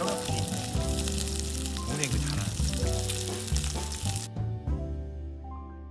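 Wood campfire burning in an open fire pit, crackling and hissing with many sharp pops, over soft background music. The crackling stops about four seconds in, leaving only the music.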